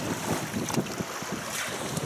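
River water lapping and splashing close by, with wind buffeting the microphone; an irregular wash of noise with small splashes.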